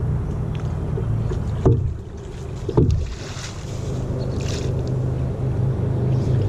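A small engine running steadily with a low hum, broken by two sharp knocks about a second apart near the middle.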